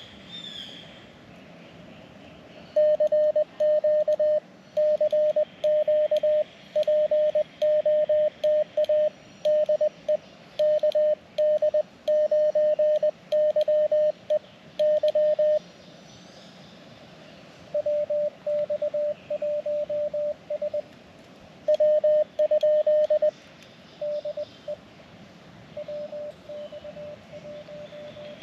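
Morse code (CW) on a ham radio transceiver: a single steady tone keyed on and off in dots and dashes. A loud run lasts about twelve seconds; after a short pause the keying resumes and grows fainter toward the end.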